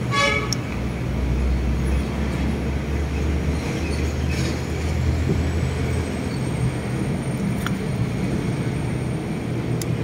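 Steady low rumble of a running vehicle or passing traffic, with a short horn-like toot right at the start and a couple of faint clicks near the end.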